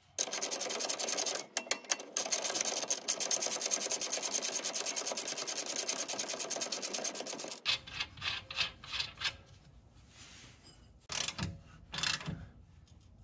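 Ratchet wrench clicking rapidly and evenly as the nut on a new rear shock's lower mounting bolt is run down. The clicking stops about seven and a half seconds in, and a few slower, separate clicks follow.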